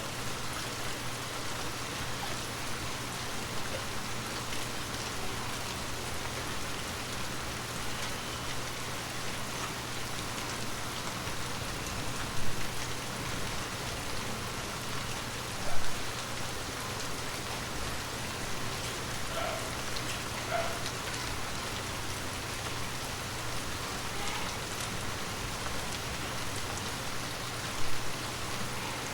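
Water drops tapping on glass in a steady, dense patter, with a few louder single drops about twelve, sixteen and twenty-eight seconds in.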